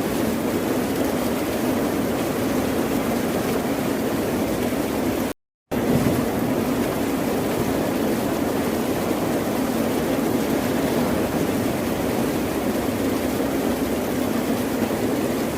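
Steady rushing, rumbling noise of ocean surf, cut by a brief complete dropout to silence about five and a half seconds in.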